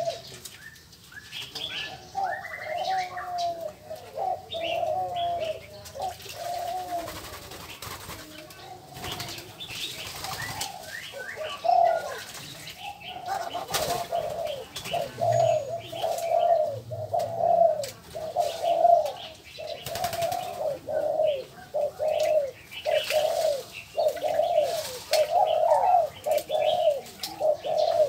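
White-breasted waterhens (te te quách) calling in an aviary: short, rising-and-falling croaking calls repeated over and over, more steadily and about once or twice a second in the second half.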